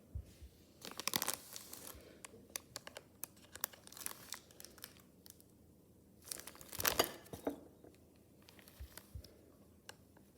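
Packaging being torn open and crinkled by hand: two louder tearing, rustling bursts, about a second in and again a little past the middle, with scattered small clicks and crinkles between them.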